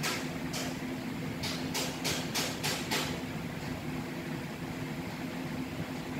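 Steady low machine hum, with about seven short hissing noises in the first three seconds.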